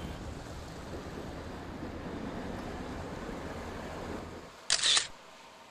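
Steady outdoor wind noise, then near the end a single short, sharp smartphone camera shutter click as a selfie is taken.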